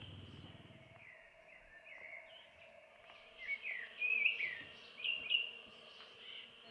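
Small birds chirping and singing in short, quick notes that slide up and down in pitch, busiest around the middle, over a faint steady background hum.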